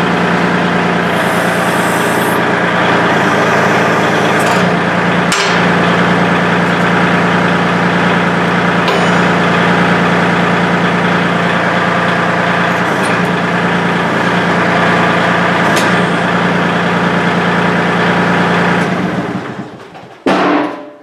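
Kubota L2501 tractor's three-cylinder diesel engine running steadily while the BH77 backhoe's hydraulics move the boom and stabilizers, with a few sharp knocks along the way. Near the end the engine shuts off and dies away, followed by one sharp knock.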